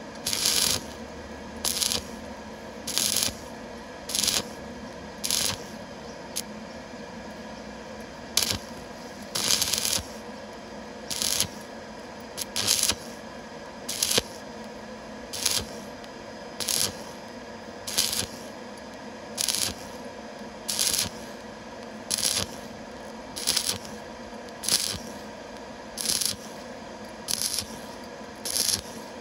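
Stick welding arc on thin steel pipe, struck and broken over and over: a short crackling hiss about every second and a half, about twenty in all, with one longer pause near the quarter mark. This stop-start arc is the way of welding thin pipe without burning through.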